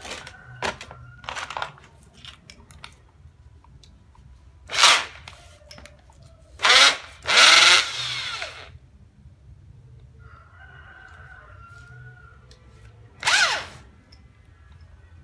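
A Panda 820 W corded drill with a screwdriver bit in its chuck, triggered in four bursts: three short and one of about a second and a half, the motor spinning up and winding down each time. Small clicks and knocks from handling the chuck come in the first couple of seconds.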